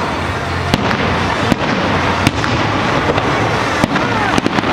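Aerial firework shells bursting: sharp bangs about once a second, then a quick cluster of several near the end, over a steady din.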